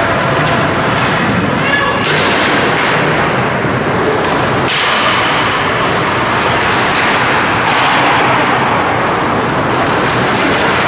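Ice hockey in play in an arena: a steady rush of noise with skates scraping the ice, and two sharp knocks of stick and puck, about two seconds in and again just before five seconds, each ringing on briefly in the rink.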